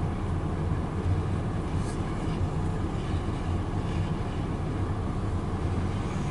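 Long CSX freight train rolling past with a steady low rumble, a few faint clicks from the wheels and cars around two and three seconds in.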